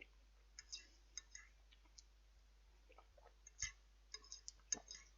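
Faint eating sounds: scattered small clicks and taps of cutlery against a plastic microwave meal tray, with a louder knock about three and a half seconds in and another about a second later.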